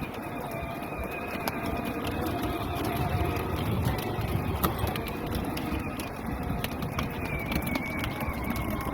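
Power Wheels ride-on toy Jeep driving over rough ground: a steady electric motor hum over the rumble of its plastic wheels.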